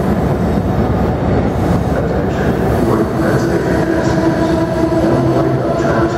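Amtrak Amfleet passenger coaches rolling past and pulling away, a steady loud rumble of steel wheels on rail. A steady whine joins about halfway through.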